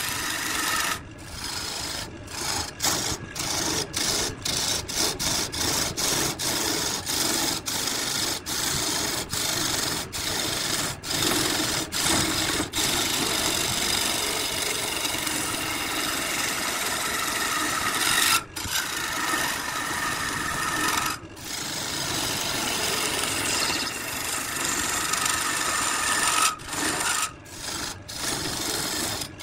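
Turning tool cutting the spinning wood of a vase blank on a wood lathe: a continuous scraping, rasping cut. It breaks off for an instant many times in the first half as the tool lifts off the wood, then runs more steadily with a few short pauses.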